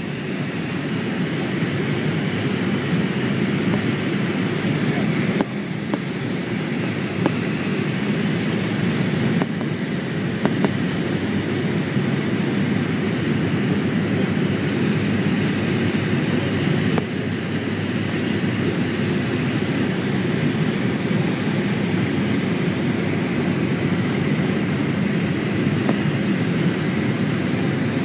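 Steady low rumble and hiss of engines and airflow inside an airliner's cabin in flight, with a few faint clicks.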